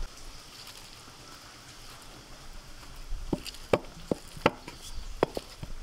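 Boiled green jackfruit being mashed and pulled apart by hand in a stainless steel bowl: a soft, quiet squishing, then from about three seconds in a run of sharp, light knocks against the steel bowl.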